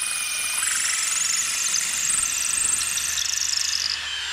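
Cordless drill running under load, boring down through a pressure-treated wooden sill plate into the concrete slab beneath; a steady high motor whine that wavers in pitch and cuts off right at the end. The drill bit comes out hot from the work.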